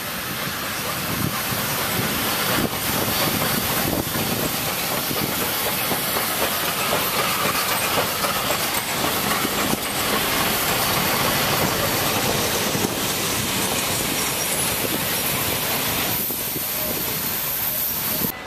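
Swedish SJ E2 class 2-8-0 steam locomotive rolling slowly past with its coaches, steam hissing steadily from around its cylinders, with wheels running on the rails. The hiss builds over the first couple of seconds, then holds steady.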